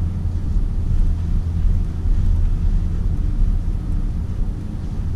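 BMW X5 xDrive50i driving slowly over an off-road course: a steady low rumble of engine and tyres.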